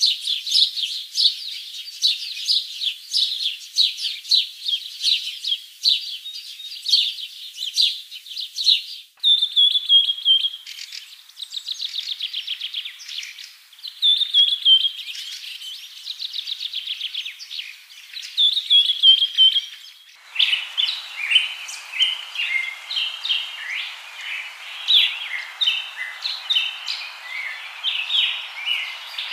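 Small birds chirping rapidly, with a short falling trilled phrase repeated several times. The sound changes abruptly twice, about a third and two thirds of the way through, and the last part sits over a steady hiss.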